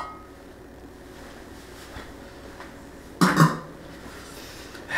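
Quiet room tone, broken a little past three seconds in by a man's short double cough.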